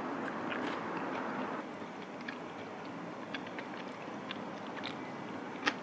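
A person eating soba noodles with chopsticks: chewing, with scattered light clicks and one sharper click near the end.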